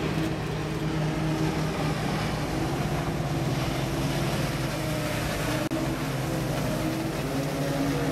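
Outboard motor of an inflatable boat running at speed, a steady engine hum whose pitch drifts as the boat approaches and passes, with the wash of water. The sound breaks off for an instant about two-thirds through.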